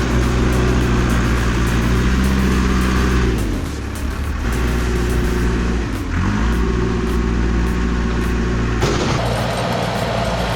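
Heavy machine's engine running under load, its pitch dipping and then rising again about six seconds in.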